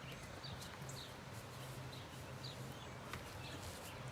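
Faint outdoor background with a few short, high bird chirps scattered through it and a low steady hum underneath.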